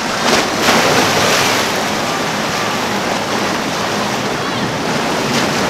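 Rushing, choppy water and boat wake washing through the inlet, with wind noise on the microphone; a surge of louder wash in the first second or so. A low steady hum of outboard engines sits underneath.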